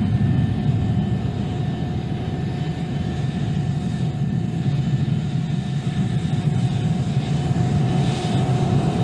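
Lockheed SR-71 Blackbird taxiing, its Pratt & Whitney J58 jet engines running steadily at low power, with a faint steady whine over the low engine noise.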